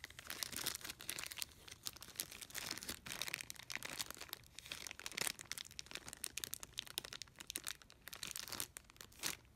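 Clear plastic bag crinkling faintly and irregularly as the test leads and probes inside it are handled.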